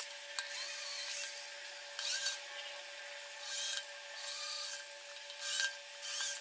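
Handheld electric drill boring holes in a PVC pipe frame: about seven short bursts of high-pitched cutting noise as the bit bites into the plastic, over a faint steady tone.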